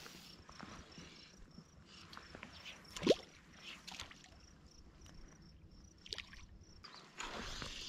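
Water lapping and sloshing gently against a float tube, with small ticks and one short, sharp sound about three seconds in. The water noise gets louder and hissier near the end.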